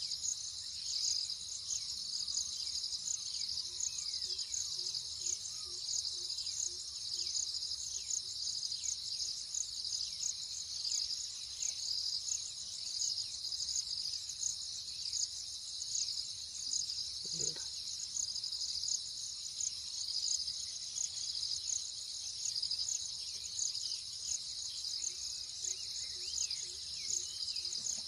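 Dense insect chorus: a shrill, high-pitched drone that pulses rapidly and never breaks. Faint short chirps sound beneath it, and there is one brief low thump about two-thirds of the way through.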